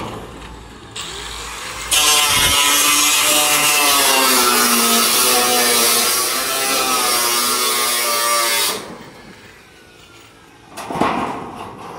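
Angle grinder cutting into steel: a loud hiss with a whine that wavers under load, starting about two seconds in and dropping away near nine seconds. A shorter burst follows near the end.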